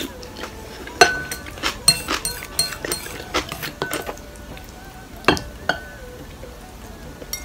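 Chopsticks and a spoon clinking and scraping against a ceramic soup bowl while stirring and scooping: a sharp ringing clink about a second in, a quick run of clinks over the next few seconds, and two more a little after halfway. Soft background music runs underneath.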